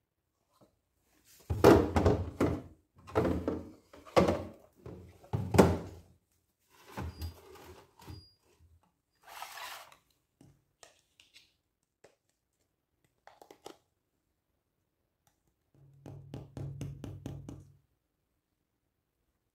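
Plastic kitchen containers and cups being handled and set down on a hard countertop. There are four loud knocks close together, then scattered lighter taps, and a quick rattle of clicks near the end.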